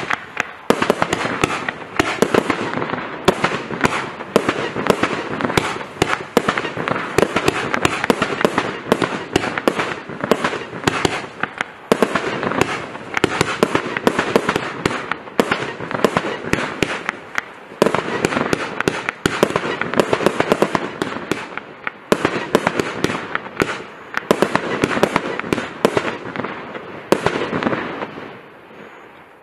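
X-CITE Night Ghost compound firework (a multi-shot cake) firing a fast, unbroken run of shots, with dense pops and bangs throughout as the stars burst. The firing thins out and fades near the end.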